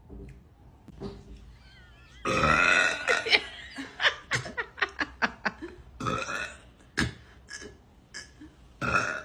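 A woman burping: one long, loud burp about two seconds in, followed by a rapid string of short burps and then a few more separate burps, the last near the end.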